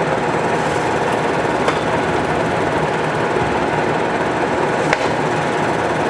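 Clausing-Colchester 8052 engine lathe running steadily under power, its spindle drive and geared headstock giving a continuous mechanical whirr with gear chatter while the power cross feed is engaged. A few sharp clicks sound over it, twice in the first two seconds and once near the end.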